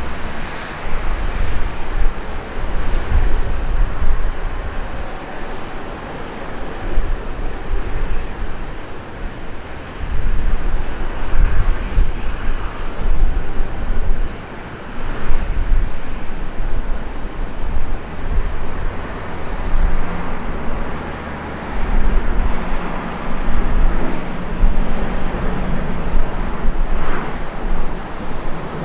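Boeing 737 jet engines at takeoff power, a steady broad roar, with heavy wind gusting on the microphone.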